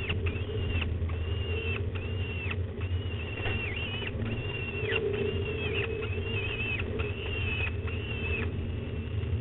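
Peregrine falcon chicks giving thin, high begging calls, drawn-out and repeated about once a second while being fed by an adult. A steady low hum runs underneath.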